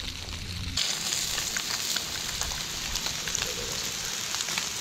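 Flour-dredged trout fillets shallow-frying in hot oil in a skillet: a steady sizzle with many small crackling pops. It gets louder and brighter about a second in.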